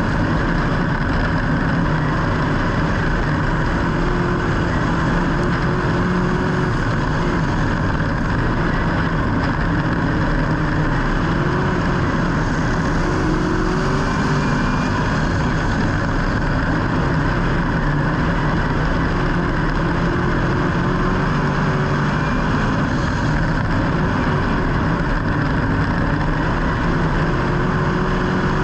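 Engines running in a steady, unbroken drone, with a faint pitch that wavers slightly up and down.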